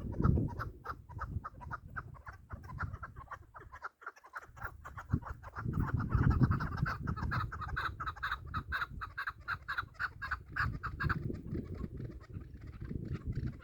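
Chukar partridges calling: a fast, steady run of clucking chuk notes, about five a second. Low rumbling noise runs underneath.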